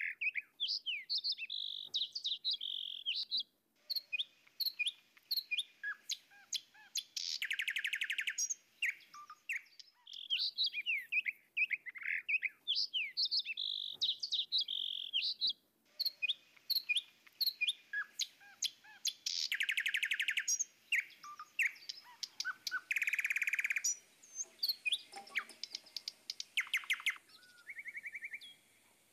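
Birdsong: a steady stream of chirps, whistles and fast buzzy trills, the same phrases coming round again about every ten seconds.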